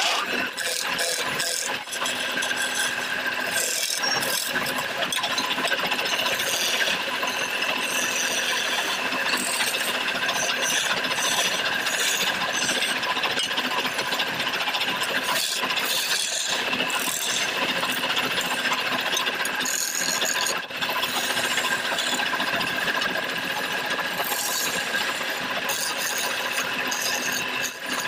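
A hand-held turning tool cutting into a wooden blank spinning on a lathe: a continuous scraping, shaving hiss over the lathe's steady hum, broken by a few brief dips.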